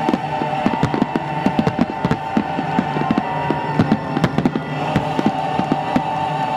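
A rapid barrage of firework bursts and crackles, densest for the first four seconds or so and thinning near the end, over sustained music.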